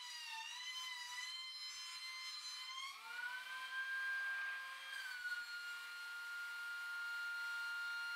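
DeWalt DW735 benchtop thickness planer running with a high-pitched motor whine. For the first three seconds the pitch sags and wavers while a board feeds through under load; then the board clears the cutterhead and the motor winds up to a higher, steady free-running whine.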